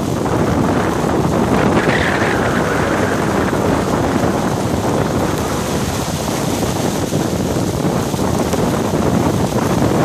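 Hailstones drumming densely and steadily on a car's body and windshield during a hailstorm.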